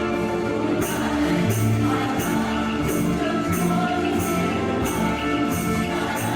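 Hymn music with sustained pitched notes and a high percussion strike on each beat, about one every 0.7 seconds, starting about a second in.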